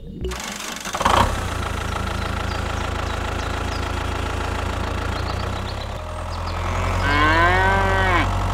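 Tractor engine running steadily, starting with a loud burst about a second in and growing fuller in the low end about six seconds in. Near the end a long call rises and falls in pitch over the engine.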